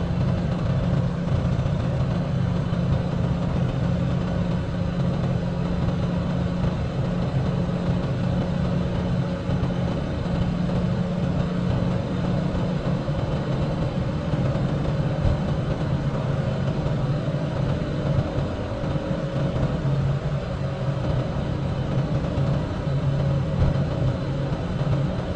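Cummins X15 diesel engine of a semi truck pulling steadily up a long mountain grade under load, a continuous low drone.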